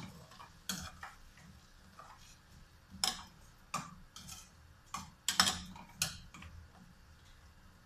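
Spatula tapping and scraping against a stainless steel frying pan while stir-frying vegetables: irregular clicks and knocks, the loudest about five and a half seconds in.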